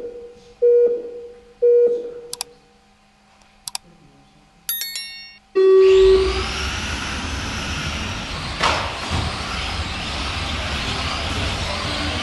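Race-timing system countdown: short beeps about one a second, a few high electronic tones, then a longer, lower start tone about five and a half seconds in. At the start tone a pack of Tamiya Euro Truck RC racing trucks pulls away, their electric motors and tyres making a continuous whining rush.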